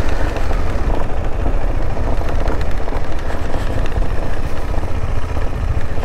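KTM 390 Adventure's single-cylinder engine running as the motorcycle is ridden along, under a steady low rumble of wind on the rider's camera microphone.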